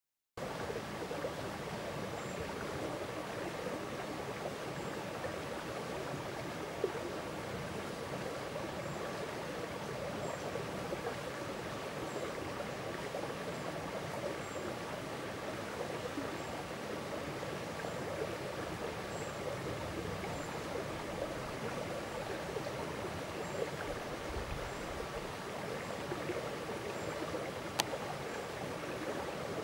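Steady rushing of running water, with faint high ticks about once a second and a single sharp click near the end.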